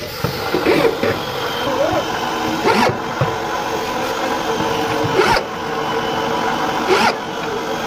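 An engine running steadily at idle, with several loud, sudden sounds over it, the strongest a little under 3 seconds in, around 5 seconds and around 7 seconds.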